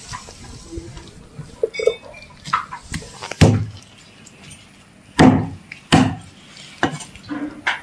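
Meat cleaver chopping through chicken wing pieces on a board: a series of sharp chops, a few light ones and then several heavy blows in the second half.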